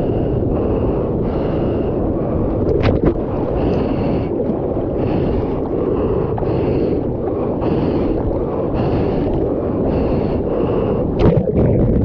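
Whitewater rushing and splashing around a surfboard during a ride, with wind buffeting the action camera's microphone, as a steady loud rush. Two sharp clicks about three and eleven seconds in.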